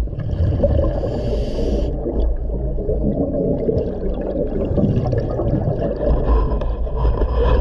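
Scuba diver's regulator breathing underwater, recorded from a close camera: exhaled bubbles gurgling and rumbling out of the exhaust in an irregular, low-heavy wash.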